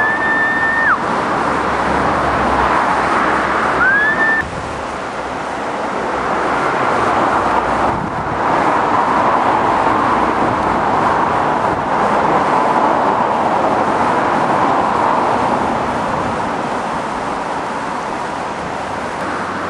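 Steady rushing outdoor noise, with two short high whistles: one about a second long at the start and a shorter one about four seconds in.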